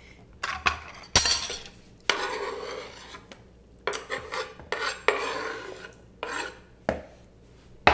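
Chef's knife scraping diced tomatoes off a tilted wooden cutting board into a plastic mixing bowl: several scraping strokes of up to about a second each, with a couple of sharp knocks of knife or board.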